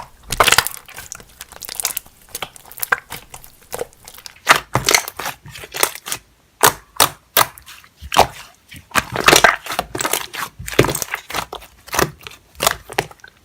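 Slime being squeezed, poked and stretched by hand, making a fast, irregular run of sticky clicks and pops.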